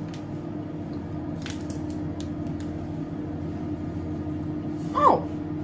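A steady low electrical hum with a few faint clicks, and about five seconds in a cat gives one short meow that falls in pitch.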